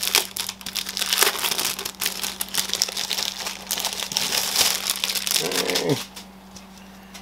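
Thin clear plastic bag crinkling and rustling as a keyboard is pulled out of it, stopping about six seconds in.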